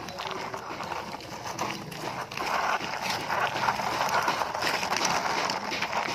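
Plastic toy dump truck pushed by hand over loose gravel: its wheels crunch and click on the stones in a dense, continuous patter that grows louder about two and a half seconds in.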